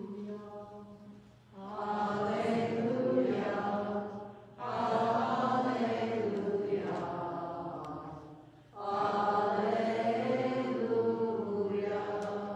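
A single voice chanting liturgical verses. It sings in long phrases of a few seconds each, on fairly level held notes, with brief pauses for breath between them.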